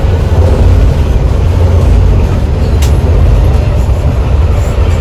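Bus driving at highway speed, heard from inside the front of the cabin: a loud, steady low rumble of engine and road noise.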